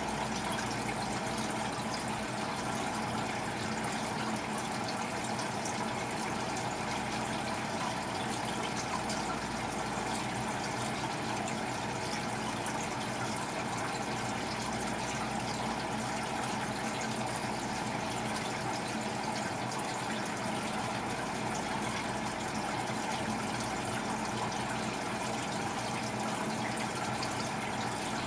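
Aquarium filter running: a steady, unbroken rush of circulating water in the fish tank.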